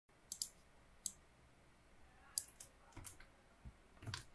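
Computer mouse buttons and keyboard keys clicking: about eight sharp, short clicks at irregular intervals.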